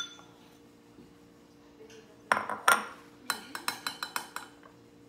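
A metal spoon clinking against a ceramic bowl while cornstarch is spooned onto sliced beef. There are two loud clinks about two and a half seconds in, then a quick run of about seven lighter taps.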